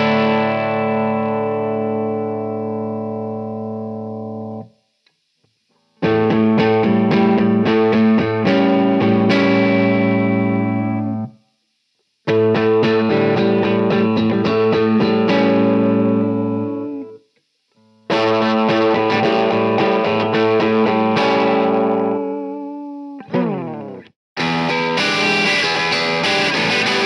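Epiphone Flying V electric guitar through a Marshall SC20H amp with a clean tone: a ringing chord dies away, then three phrases of chords and single notes, each stopping dead with a short silence between. Near the end a quick slide down the neck, then a brighter crunch (overdriven) tone starts.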